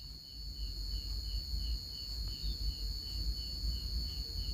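Insects chirping: a steady high trill with a second, pulsed chirp repeating about two to three times a second, over a low rumble.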